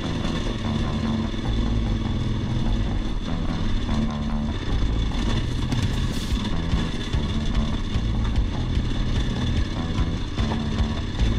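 Trail motorcycle's engine running steadily while being ridden.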